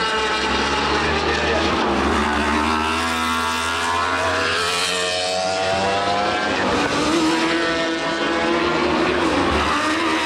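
British Superbike racing motorcycles' engines running at high revs as the bikes pass, their notes rising and falling in pitch as they go by.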